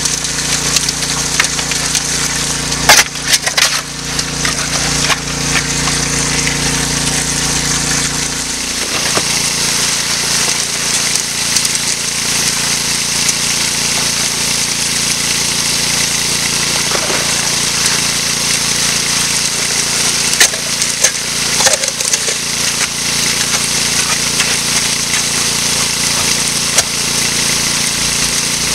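Water rushing steadily through a highbanker, with the pump engine's low hum underneath for the first several seconds. Gravel and rocks clatter a few times, loudest about three seconds in.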